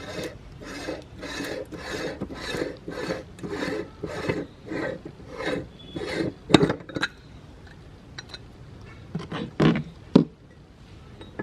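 Meat grinder rasping through hard items in regular strokes about twice a second, then a few sharp cracks and scattered clicks in the second half as the grinding slows.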